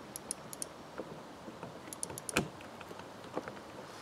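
Light scattered clicks and taps of a metal pin being worked down through a plastic snowmobile throttle housing by hand. The loudest tap comes a little past halfway.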